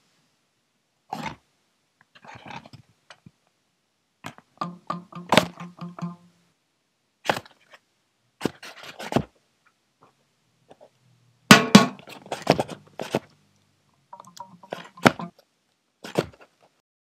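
A string of separate short sound effects with silence between them: sharp clicks and knocks, some carrying a brief pitched tone, the loudest cluster about eleven and a half seconds in.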